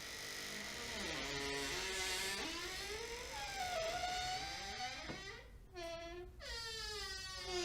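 Squeaky door hinge creaking as the door swings slowly: a wavering squeal whose pitch glides up and down, breaking off briefly about five and a half seconds in before creaking again.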